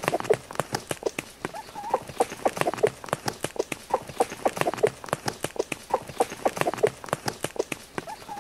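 Chicken pecking at a smartphone screen: a rapid, irregular stream of sharp beak taps, several a second, with a few short clucks in between.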